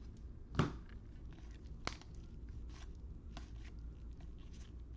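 Trading cards being handled and flipped through: light rustling and small ticks, with a sharp click about half a second in and another about two seconds in.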